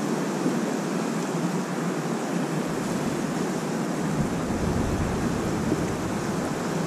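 River water rushing steadily, with a low rumble swelling about halfway through.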